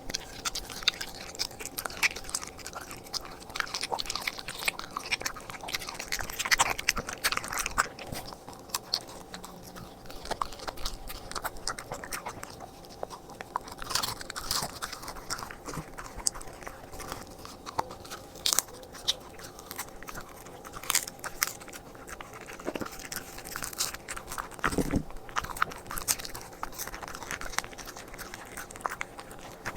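A corgi eating its raw meal, chewing and crunching with many irregular wet bites.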